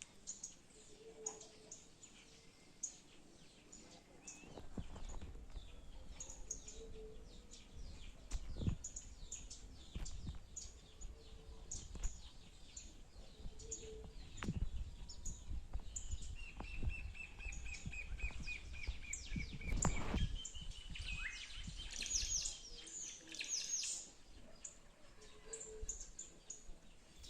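Several small birds chirping and calling with short high notes, one giving a rapid trill of repeated notes just past the middle. A low rumble comes in about five seconds in and runs underneath.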